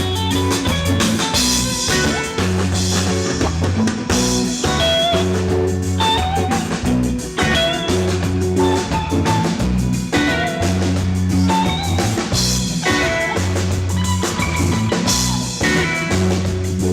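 Live band playing a Tuareg desert-blues groove: electric guitar picking lead lines over a repeating bass figure and a drum kit keeping a steady beat.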